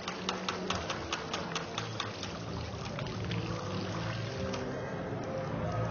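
A quick, even series of sharp clicks, about five a second for a little over two seconds, over a steady low hum.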